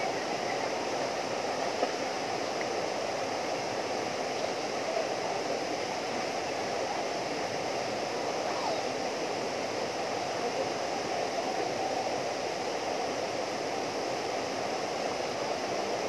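Small waterfall pouring down rock into a pool: a steady, unbroken rush of water.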